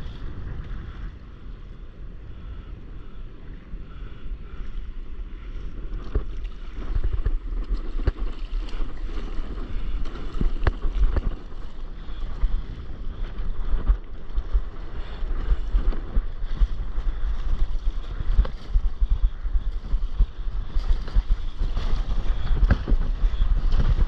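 Wind rumbling on the camera microphone, with water splashing and lapping around a stand-up paddleboard as it is paddled over the sea. It grows louder about six seconds in.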